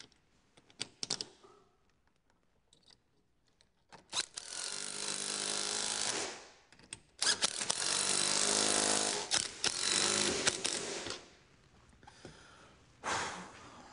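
A power driver spinning nuts down onto push-through studs in a snowmobile track, running in two long spells and a short one near the end, with a few small clicks of hardware before.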